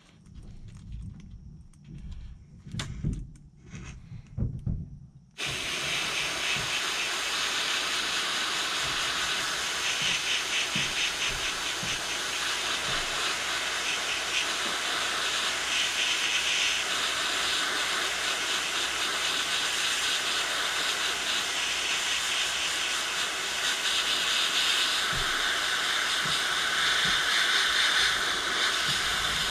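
A few low knocks and handling bumps. Then, about five seconds in, an airbrush starts spraying paint with a steady hiss of air.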